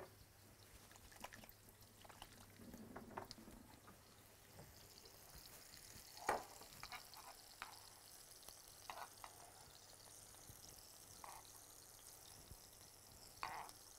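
Salmon fillets frying in hot oil in a pan, a faint sizzle that grows after about five seconds. A few sharp knife taps on a wooden cutting board come through it, the loudest about six seconds in.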